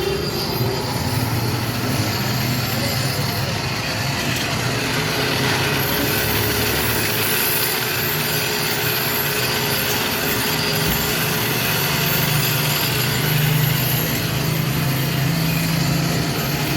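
Motorized knife-sharpening machine running, with a steady low hum under a high grinding hiss.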